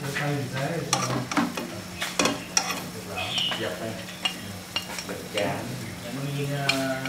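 Fish braising and sizzling in a cooking pot while a utensil stirs and clinks against it, with many short sharp clicks.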